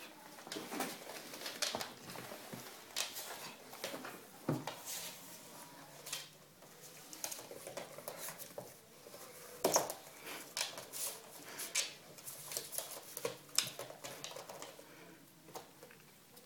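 Dogs' claws clicking, tapping and scrabbling irregularly on a hard floor as a Doberman and a small Prague Ratter play-wrestle, with scuffing on a blanket.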